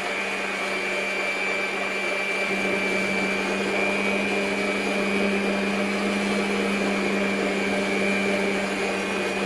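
SilverCrest stand mixer running steadily at one speed, its beaters whisking sponge-cake batter in the bowl: an even motor hum with a thin high whine over it.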